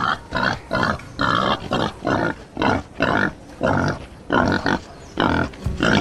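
Pigs giving short, loud grunts in quick succession, about two a second.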